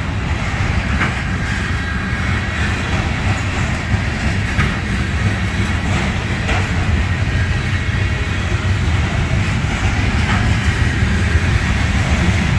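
Freight train of loaded trash container cars rolling past close by: a steady low rumble of steel wheels on rail. A few brief sharp noises from the wheels cut through about a second in, near the middle and near the end.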